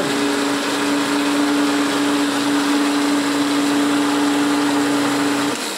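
Electric mixer-grinder running at a steady speed while its lid is held down by hand: a constant motor whine over a whirring rush. Near the end it is switched off and the motor winds down.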